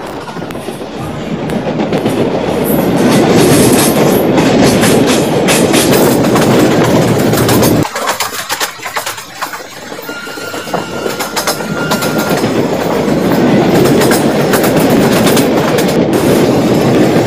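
Passenger train running at speed, heard from inside a carriage: a steady wheel-and-rail rumble with clicking as the wheels cross rail joints. The sound drops suddenly about eight seconds in, then builds back up.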